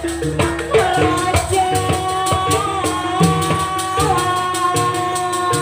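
Live jaranan music from an East Javanese gamelan ensemble: steady drum strokes and a repeating pattern of pitched notes under one long, slightly wavering melody line.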